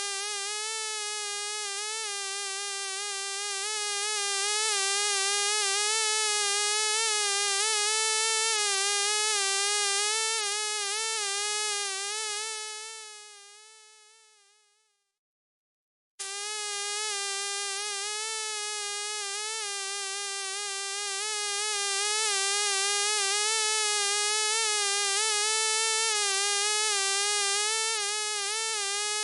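Mosquito buzzing in flight: a steady high whine with a wavering pitch that swells louder, fades away about halfway through, then starts again after a short silence and swells once more.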